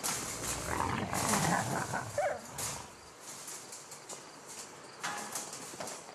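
A wolf whining and yelping in wavering, high cries for about three seconds, then the sound drops away to a quieter background with a few faint ticks.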